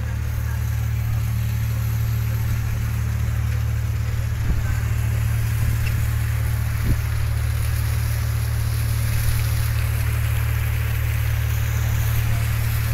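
Steady low drone of a ship's engine, with a constant hiss of wind and sea over it. Two faint knocks come about four and a half and seven seconds in.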